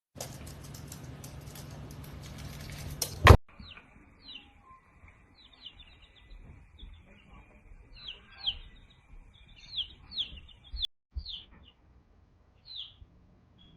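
About three seconds of steady hiss that ends in a sharp click, then small birds chirping: short, high chirps that fall in pitch, several close together at times, over a faint steady high tone.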